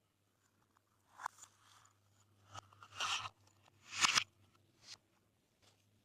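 Glossy slime being pressed and folded by hand, giving about four short crackly pops, the loudest a little after the middle.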